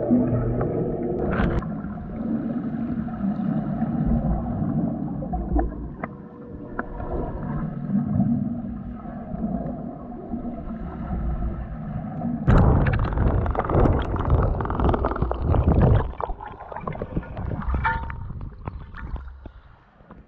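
Muffled underwater sound picked up by a submerged camera: a low rumble of moving water with a few faint steady hums. About twelve seconds in a louder rush of water noise runs for a few seconds, then dies down.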